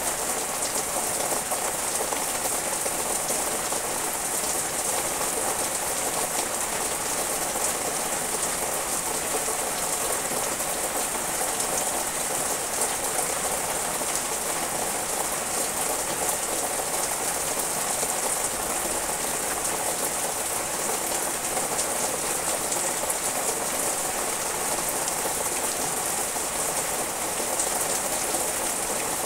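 Steady rain falling on the leaves of garden trees and shrubs: an even, unbroken hiss of countless drops.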